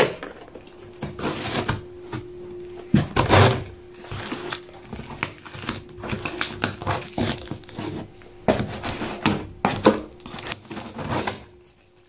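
Packing tape being peeled and torn off a cardboard shipping carton, with hands rustling and scraping over the cardboard in irregular bursts, loudest a few seconds in and again near the end.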